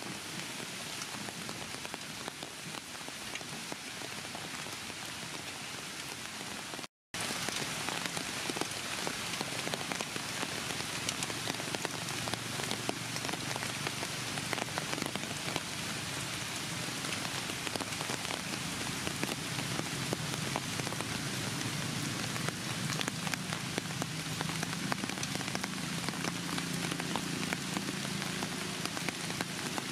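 Steady rain falling on the ground and leaves, an even hiss packed with small drop hits. The sound cuts out completely for a moment about seven seconds in.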